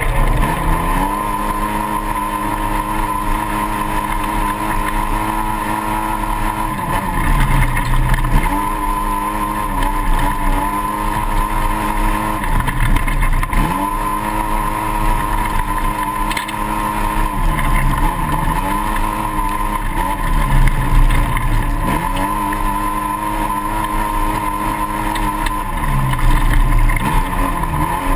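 2008 Polaris RZR side-by-side's engine running hard at race speed, heard from on board; its note drops and climbs back up about five times.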